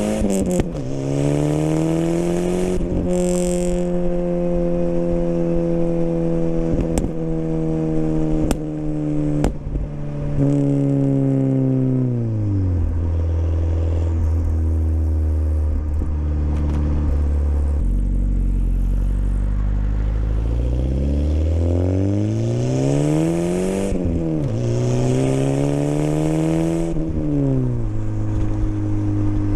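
Volvo 240 Turbo's turbocharged four-cylinder heard at the exhaust tip while parked and revved. The revs climb and hold high for several seconds, with a few sharp clicks, then drop to idle. Near the end come two quick rev blips that rise and fall back to idle.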